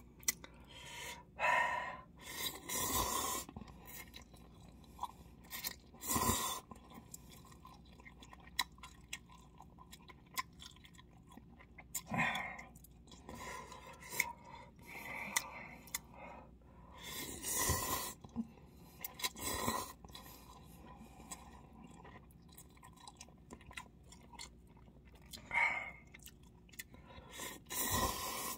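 Eating cup instant noodles close to the microphone: chewing, wooden chopsticks stirring and scraping in the paper cup, and short noisy bursts every few seconds. Noodles are slurped near the end.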